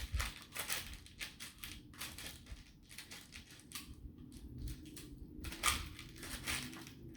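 Small beads clicking and rattling as they are picked through and moved by hand, in many quick, irregular clicks.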